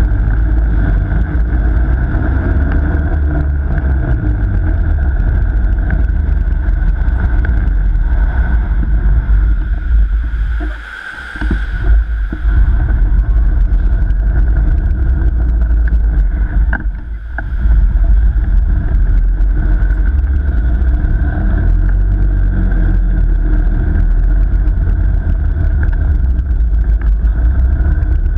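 An ice kart running on the ice, heard from a camera mounted on the kart: a loud steady motor drone over heavy rumble from the chassis. The drone eases off briefly twice, about eleven and about seventeen seconds in, then picks up again.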